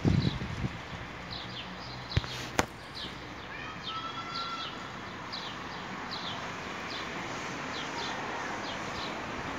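Leaves of a potted poplar rustling steadily in the breeze, with a small bird chirping in short, quick notes over it. Two sharp clicks about two seconds in.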